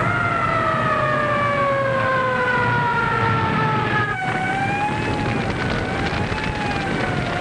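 Fire engine sirens over a low rumble. One siren wails and slowly falls in pitch. After a cut about four seconds in, another siren slowly rises and falls.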